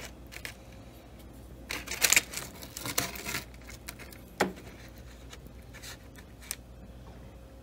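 Metal fork scraping and clicking against a foil-lined baking pan while cutting into cheese-covered chicken bites, with a little foil crinkle. There is a cluster of scrapes about two to three seconds in and one sharp click a little after four seconds.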